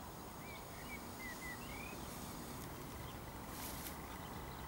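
A small bird chirps faintly, about six short quick chirps in the first two seconds, over a steady low outdoor background noise. A brief hiss comes a little before the end.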